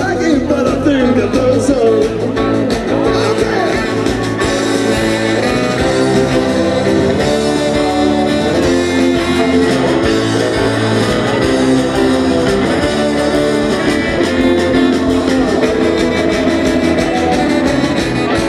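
Rockabilly band playing live with electric guitars, saxophone and drums.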